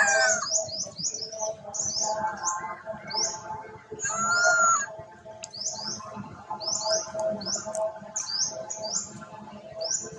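Small birds chirping over and over, in short high downward-sweeping notes. Over them, a long-tailed macaque gives a loud falling cry at the start and a shorter arched call about four and a half seconds in.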